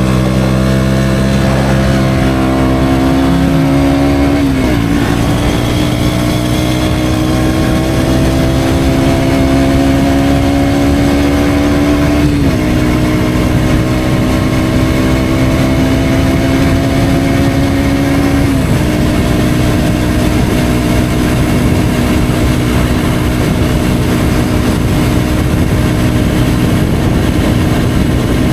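KTM Duke 125's single-cylinder four-stroke engine through an Akrapovic exhaust, under way: its pitch climbs slowly in each gear and drops sharply at three upshifts, then holds steady at cruising speed for the last third. A steady rush of air runs underneath.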